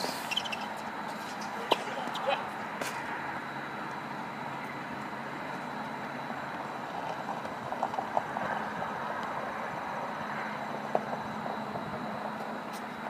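A few sharp, isolated knocks of a tennis ball on a hard court, over a steady outdoor background hiss.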